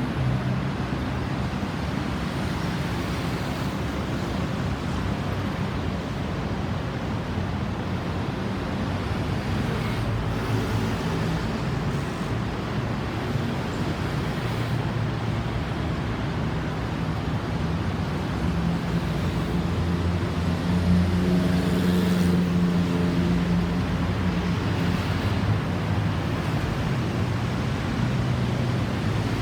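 Road traffic: motor vehicle engines running with a steady low hum over road noise, the hum swelling a little past the middle.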